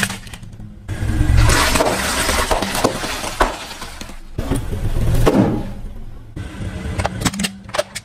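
A car tyre rolling over and crushing a plastic toy kitchen and bags of puffed snacks, crunching and crackling in long noisy stretches over a low engine hum. Near the end come a run of sharp cracks as hollow plastic toys give way under the tyre.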